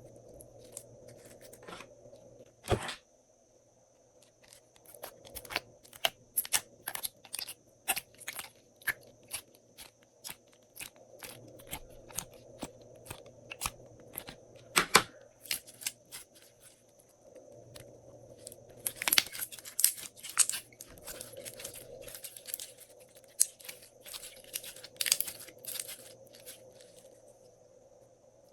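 Glossy slime being worked by hand, with mixed-in bits: irregular sticky clicks and crackles, coming thickest in a quick flurry about two-thirds of the way through, over a faint steady high whine.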